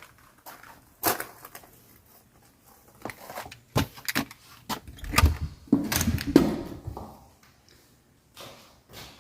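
Irregular knocks, clicks and rustling of objects being handled, with a cluster of heavier thumps and scrapes about five to seven seconds in.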